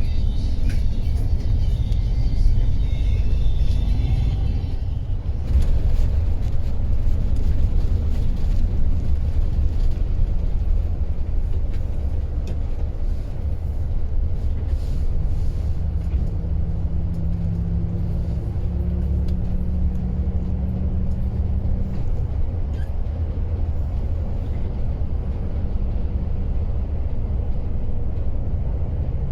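Passenger coach on the move: steady low rumble of engine and road noise, with music playing over it for the first few seconds. A low droning tone joins in for several seconds past the middle.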